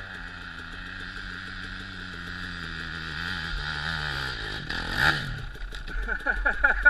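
Honda CRF250X single-cylinder four-stroke dirt bike engine labouring up a steep slope, its pitch sagging as it bogs down, then a loud clattering crash about five seconds in as the bike goes over. An uneven sputtering follows.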